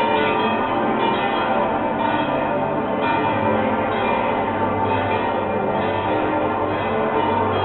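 Church bells of the Temple of Saint Sava ringing a continuous festive peal, many bells sounding at once and overlapping without a break.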